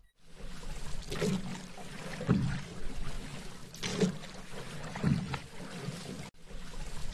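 Paddle strokes in water: the blade dips and pulls through with a splash and swirl, the strokes coming in pairs about a second apart over a steady wash of water. The sound cuts out for a moment about six seconds in.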